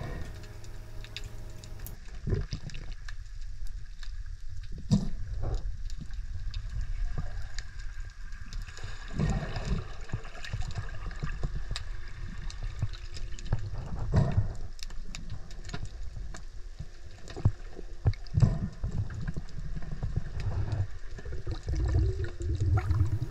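Muffled underwater sound picked up by a submerged camera: a low rumble of moving water with scattered clicks and pops.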